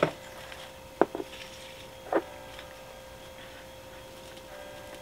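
A few short knocks and rustles of a tomato plant's root ball being worked free of a black plastic nursery pot, over a faint steady hum.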